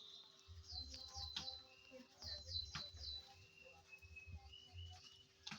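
Faint bird chirping: two quick runs of short falling chirps, then a few thin whistled notes, over an on-and-off low rumble.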